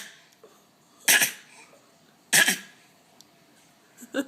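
An 11-month-old baby fake coughing: short, breathy coughs about a second apart. Quick rhythmic pulses of a giggle start near the end.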